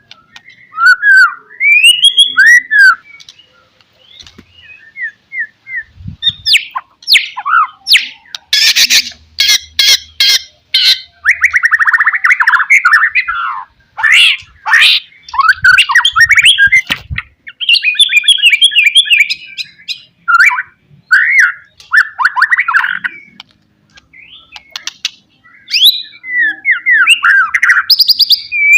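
White-rumped shama singing a loud, varied song: phrases of slurred whistles and rising and falling notes separated by short pauses, with a burst of sharp clicks and fast rattling notes in the middle.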